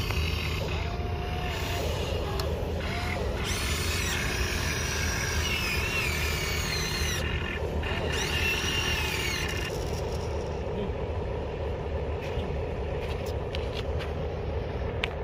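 Radio-controlled excavator's electric motors and gearing running with a steady whirring hum as the arm digs and swings, with whining tones that rise and fall in pitch as the load changes. A few sharp clicks come near the end.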